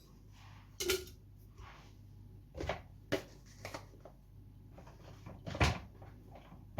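Kitchen handling sounds: a few separate knocks and clatters of containers and utensils as recipe ingredients are added, the loudest a dull thump towards the end.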